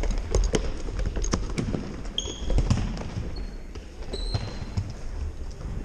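Soccer ball being kicked during a match: scattered thumps and knocks at an irregular pace, with a few short high-pitched squeaks about two and four seconds in.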